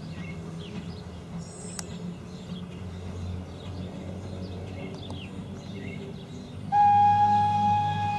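Steam locomotive dressed as Thomas the Tank Engine running with its coaches, a steady low rumble. Near the end its steam whistle starts one long, steady blast.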